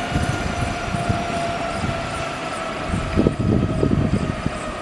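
Agusta A109E Power helicopter's twin turbine engines spooling down at shutdown with the main rotor still turning: a steady whine slowly falling in pitch. Gusty low rumbling comes in about three seconds in.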